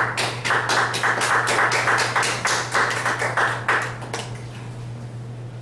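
A small audience clapping: a dense burst of applause that dies away about four seconds in.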